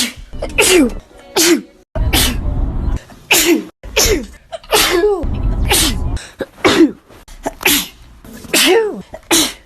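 A person sneezing about a dozen times in quick succession, less than a second apart. Each sneeze is a sharp burst with a short vocal cry that falls in pitch.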